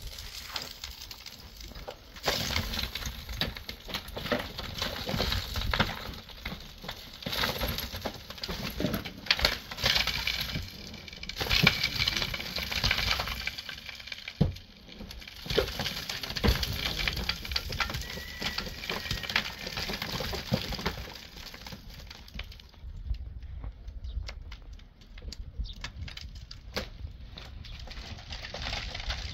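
Pickaxe and shovel breaking up and clearing a packed-earth roof, with dirt and clods pouring down into the room below: a dense, irregular run of knocks and rushing earth that thins to scattered scrapes and knocks in the last several seconds.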